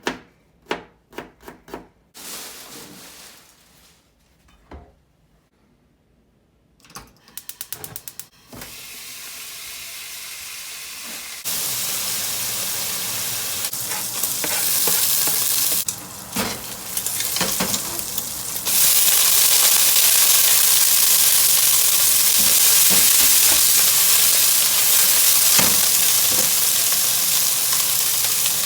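A pan of offal stir-frying: the sizzle starts faintly, gets louder a little over a third of the way in and louder again about two-thirds through, with spatula knocks and scrapes in between. The start holds scattered taps and a quick run of clicks before the sizzling begins.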